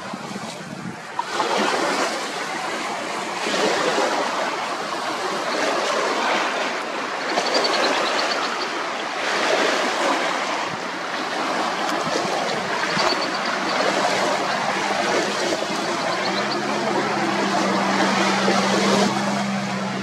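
High wind gusting and choppy lake water splashing against the shore: a rushing noise that rises and falls. A low steady hum joins about three-quarters of the way through.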